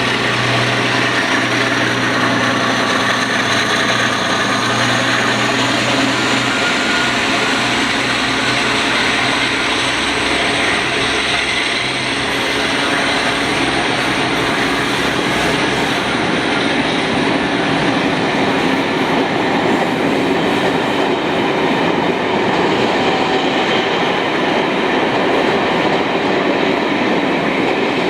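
A train running by at close range, with a continuous loud rumble and wheels clattering over the rail joints. A thin high whine climbs slowly in pitch over the first half.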